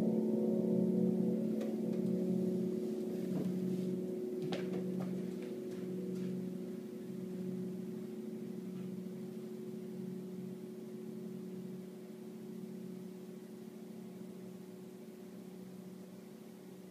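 Carillon bells dying away after the last chord of the piece. Several bell tones hang on and fade slowly, the low one wavering about once a second, with a few light clicks in the first five seconds.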